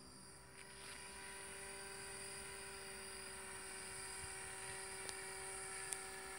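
Small motor and propeller of a radio-controlled model paraglider running with a faint, steady hum at one pitch, growing slightly louder as the model makes a low pass.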